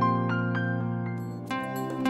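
Background music: a soft piano or keyboard melody, with a fresh run of notes about one and a half seconds in.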